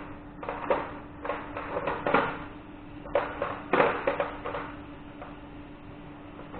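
Irregular knocks and clatters of tools and metal parts being handled at a workbench, over a steady low hum.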